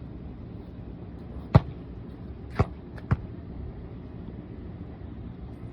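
Three sharp knocks, the first about one and a half seconds in and the last two about half a second apart, over a steady low mechanical hum.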